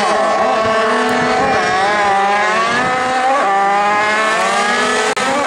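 Two small two-stroke moped engines revving hard at a drag-race start and accelerating away, several engine notes shifting and climbing in pitch together. The sound breaks off sharply about five seconds in, then the revving resumes.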